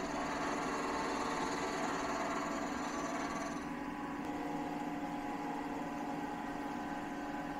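CNC milling machine running a cut on small plastic parts under flood coolant: a steady machine hum with a constant tone, and the hiss of coolant spray. The highest part of the hiss drops away about three and a half seconds in.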